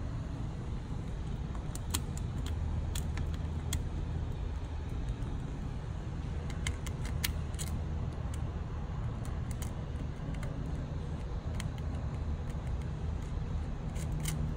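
Small scattered metallic clicks and ticks as number 6 kep nuts are fitted back onto the studs of a humidifier's ultrasonic transducer and circuit board, over a steady low hum.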